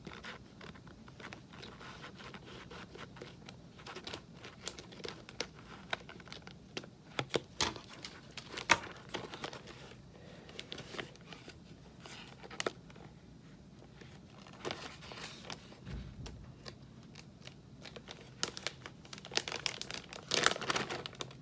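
Scissors snipping open a plastic jerky pouch, then the plastic crinkling and rustling in irregular sharp crackles as the bag is worked open, with a louder burst of crinkling near the end as a strip of jerky is pulled out.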